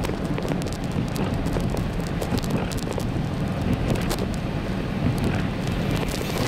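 Car driving on a wet road, heard from inside the cabin: a steady low rumble of tyres and engine, with many sharp, irregular ticks of freezing rain striking the windshield.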